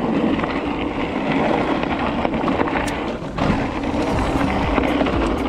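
Hardtail mountain bike descending at speed: wind and tyre rolling noise with clicks and rattles from the bike over the rough trail, and a faint steady hum underneath that grows plainer about three and a half seconds in.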